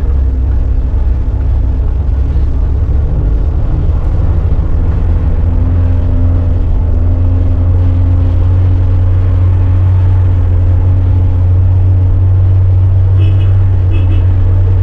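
Shared taxi's engine and road noise heard from inside the cabin, a steady low drone whose pitch rises slightly about a third of the way in. Near the end, two short horn beeps.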